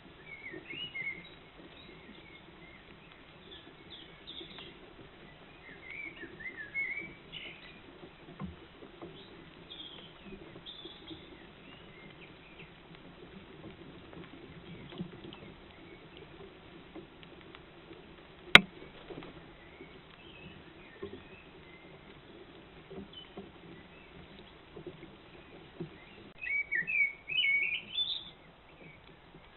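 Small songbirds chirping and singing intermittently in the background, in short high notes, with a louder run of rising chirps near the end. A single sharp click sounds about two-thirds of the way through.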